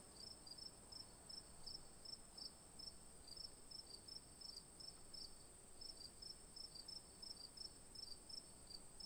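Very faint insect chirping, like a cricket: short high chirps repeating several times a second over a thin, steady high whine.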